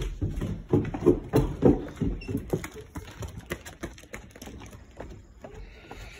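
Footsteps thudding across a wooden porch and down its steps, about three a second and loudest in the first two seconds, then fading to fainter steps.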